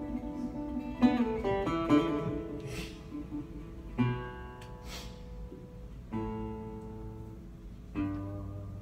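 Resonator guitar played slowly and sparsely: a short run of notes about a second in, then single chords about every two seconds, each left to ring and fade.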